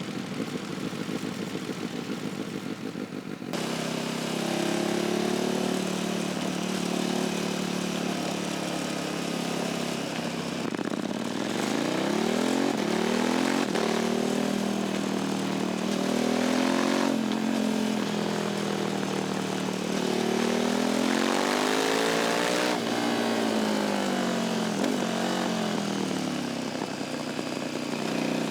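Sport motorcycle exhaust recorded close up at the back of the bike while riding. A steady engine note gives way abruptly, a few seconds in, to a louder stretch where the revs climb and drop back again and again through acceleration, gear changes and slowing.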